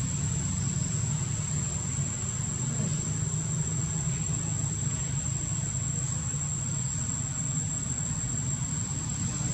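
Steady outdoor background: a continuous low rumble under a thin, unbroken high-pitched insect drone.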